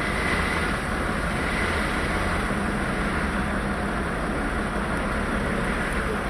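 Steady rumble and hiss of a fire engine running at the scene of a fire, with a faint steady whine above it.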